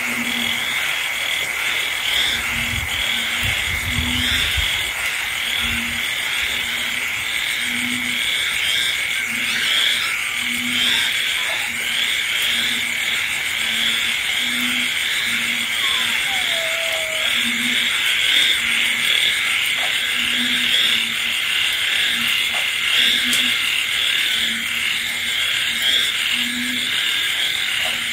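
A night chorus of frogs and insects in the rain: a steady high trill and a dense chatter of calls over a short low frog call repeating about once a second.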